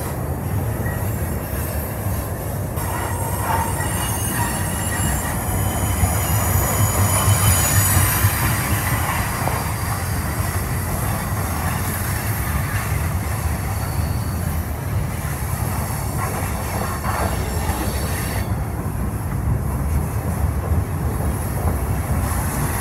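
Freight train of tank cars and boxcars rolling past on steel rails: a steady rumble of wheels on track, with high-pitched wheel squeal coming and going. The squeal is strongest a few seconds in and returns briefly near the middle.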